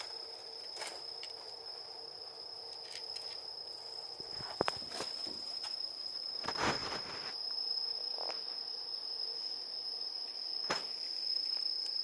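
Insects trilling steadily at one high pitch, with a few sharp clicks and knocks scattered through, the loudest in the middle.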